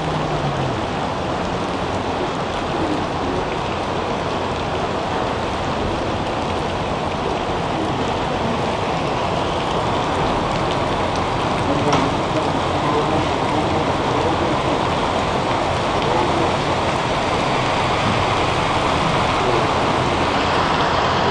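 Heavy rain pouring down onto a flooded street: a steady hiss of rain striking standing water and pavement.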